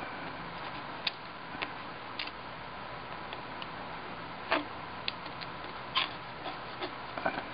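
Sparse, irregular light clicks and short scrapes as the lead came edging of a glass display case is picked and scraped clean of leftover tape and glue, over a faint steady hiss.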